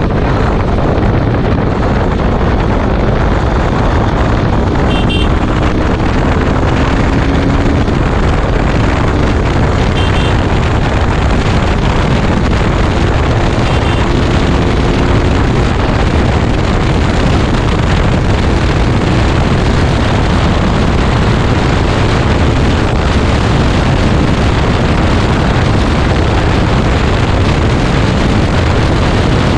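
Heavy wind noise on the microphone of a KTM RC 200 ridden at high speed, with the bike's single-cylinder engine running underneath; the engine note rises slightly a couple of times.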